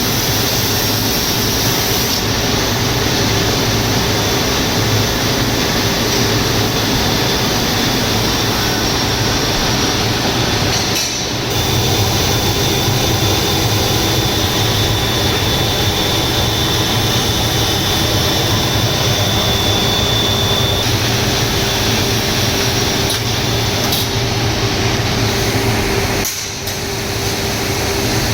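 HOMAG CNC router machining round table tops: steady, loud machine and cutting noise with a high whine through the middle, dipping briefly about eleven seconds in and again near the end.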